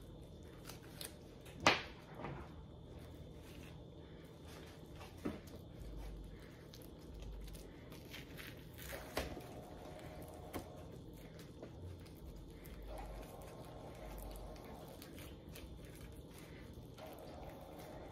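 Faint handling sounds of gloved hands working a raw slab of pork spare ribs on a wooden cutting board, picking off leftover bits of membrane. A few light knocks and taps come through, the sharpest about two seconds in.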